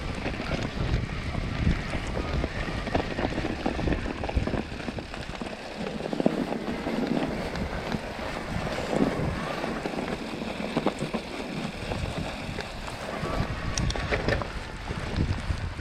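Wind buffeting an action camera's microphone while riding an e-bike, a steady rushing noise. Its low rumble drops away for several seconds midway, then returns.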